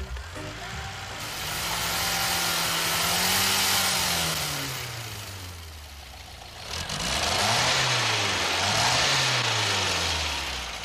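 Car engine revved up and allowed to fall back twice, its pitch climbing and dropping with a loud rush at each peak. The second rev wavers in a quick double blip before it falls back toward idle.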